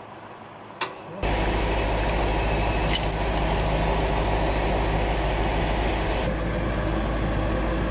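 Heavy truck engine running steadily at a low, even note, coming in abruptly about a second in after a single click.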